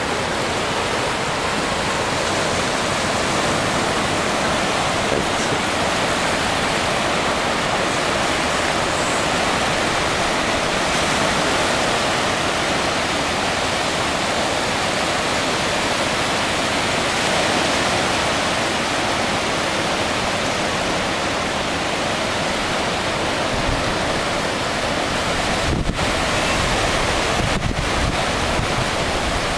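Steady rush of small surf waves breaking on a sandy beach, with wind buffeting the microphone in the last few seconds.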